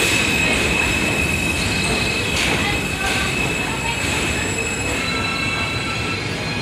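Train wheels squealing on the rails: a steady high-pitched squeal over the rumble of the moving train, with the main squeal tone stopping near the end.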